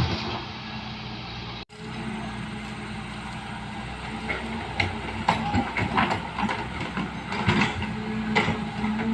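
Excavator diesel engine running steadily, with irregular knocks and clanks from about four seconds in. The sound drops out for an instant just before two seconds in.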